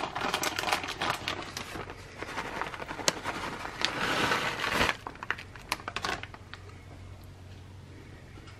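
Plastic bag of shredded mozzarella crinkling as it is handled, then the shreds pouring out of the bag with a rustle about four seconds in, followed by a few more crinkles.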